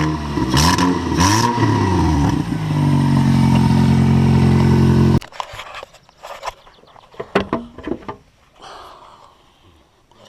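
Demolition derby car's engine running with the exhaust cut off, revved up and down a few times, then cutting out abruptly about five seconds in. Faint clicks and knocks follow.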